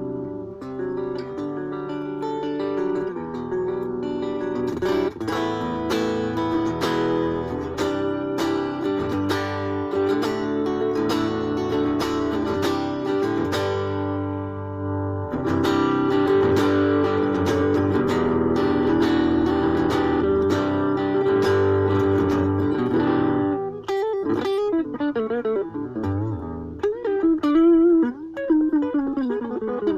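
Ibanez AXS42 guitar, its tone circuit fitted with a vintage capacitor, played as a sound check: ringing chords and picked notes. From about 24 seconds in, the notes are bent with a wide, wavering vibrato.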